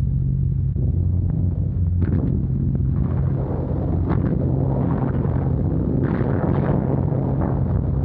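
Steady drone of the Short Stirling's four Bristol Hercules radial engines in flight. About two seconds in, a rushing noise with faint crackles joins the drone.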